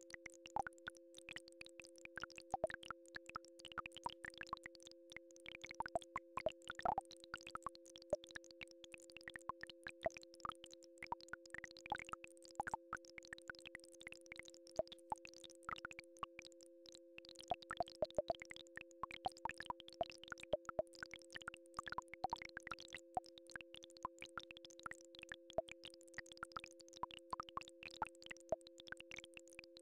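Two quiet, steady electronic tones sounding together, one lower and one a little higher, held without a break: a Rife or solfeggio frequency-healing drone. A dense scatter of irregular soft clicks and pops runs over it.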